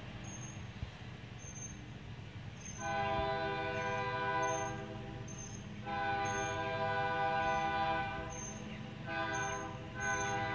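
Diesel locomotive's multi-chime air horn sounding the grade-crossing signal as it approaches: two long blasts, a short one, then a final long one that begins near the end. A low steady rumble runs underneath.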